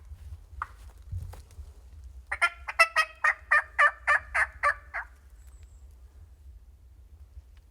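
Turkey calling: a run of about ten loud, evenly spaced notes, roughly four a second, lasting close to three seconds. A few faint clicks come before it, over a steady low rumble.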